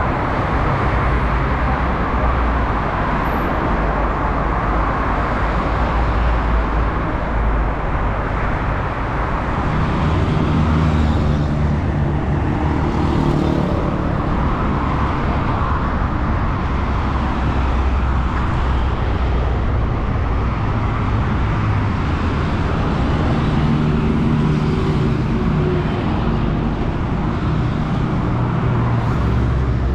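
Steady highway traffic noise: a constant rumble of motor vehicles and tyres on the road. A heavier engine drone rises for several seconds about a third of the way in and again near the end.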